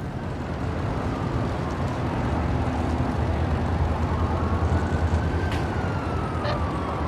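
Steady low rumble of a vehicle. From about halfway a single high tone rises and then slowly falls.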